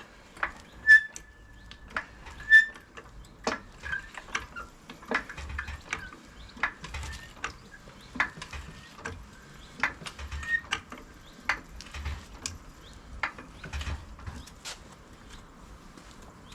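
Irregular sharp metallic clicks and clinks from hand tools and wheel nuts being worked during a wheel change, the two loudest about a second and two and a half seconds in. A faint high whistle-like tone sounds through the first few seconds.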